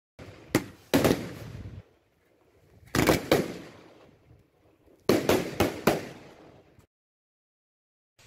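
Sharp, loud explosive bangs in three quick groups of two to four, each bang trailing off in an echo.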